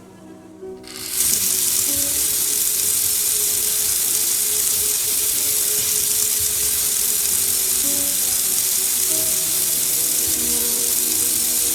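Running water hissing steadily, starting about a second in, over background music.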